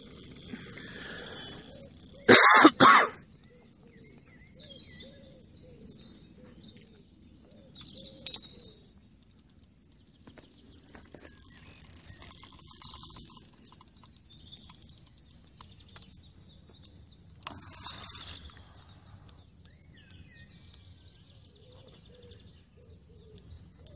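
A person coughs twice in quick succession, loudly, about two and a half seconds in. After that there is only faint outdoor background with birds chirping now and then.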